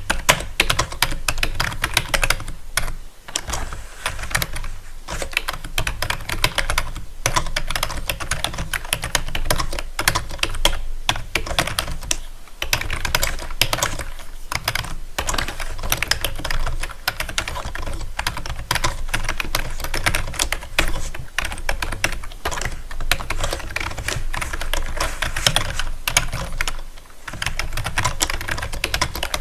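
Fast, continuous typing on a keyboard: a dense run of clicking keystrokes broken by a few short pauses.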